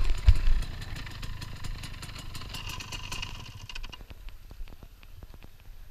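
Off-road vehicle engine running and dying away, fading out about four seconds in, with a low thump just after the start. Faint ticking and clatter follow.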